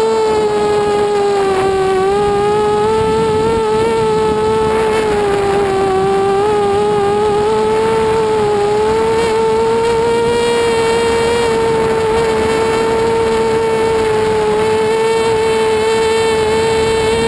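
Mini FPV quadcopter's electric motors and propellers whining steadily at one strong pitch, which wavers gently up and down with the throttle, heard from the onboard camera.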